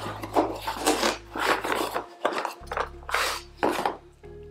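Packaging rustling and rubbing as cables are unpacked from an accessories box, in a string of irregular scrapes about every half second.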